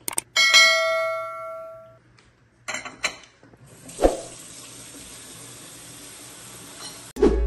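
A bell-like ding rings out and fades over about a second and a half, followed by a couple of light clicks. From about four seconds in, a kitchen faucet runs steadily into a stainless steel sink, then cuts off suddenly near the end.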